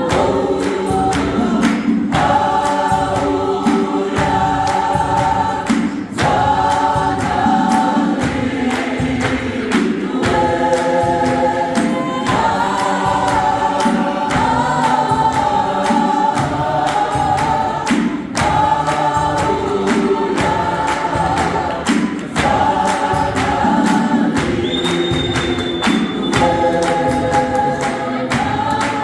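A South African gospel choir sings in full harmony, in phrases that break about every two seconds. A steady beat of hand claps and taps runs under the voices.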